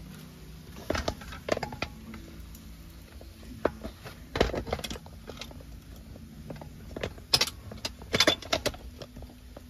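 Scattered light clinks and knocks of things being handled at a dinner table, loudest about halfway through and again near the end, over a low steady hum.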